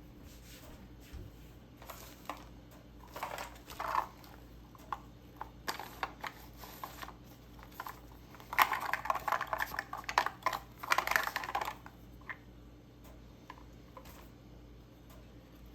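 Hands playing with slime: sticky crackles, clicks and small pops, with the densest bursts a little past the middle.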